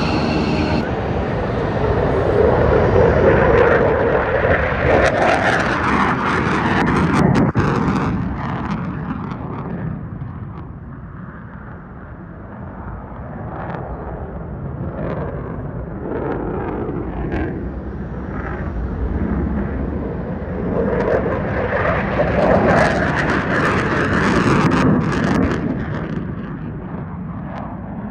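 F-15 Eagle fighter's twin jet engines on takeoff and climb-out. A high whine in the first second gives way to a loud roar that swells, fades near the middle and swells again.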